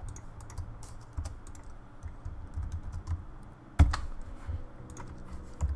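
Computer keyboard keys and clicks tapped irregularly, with one louder clack about four seconds in.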